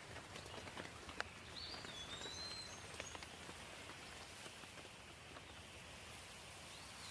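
Light, steady rain with scattered drops landing close by. A bird gives one short whistled call about a second and a half in.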